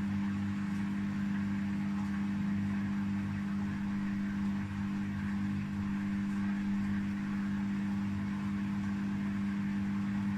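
Samsung front-loading washing machine in its spin cycle, running with a steady, even hum. This machine has an abnormal noise during spin, which the repairman traces to a cracked drum spider (the three-armed drum support).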